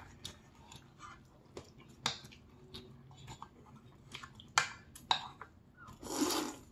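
Close-miked eating sounds: scattered sharp wet clicks of chewing, then a loud slurp of jjamppong noodles being sucked in about six seconds in.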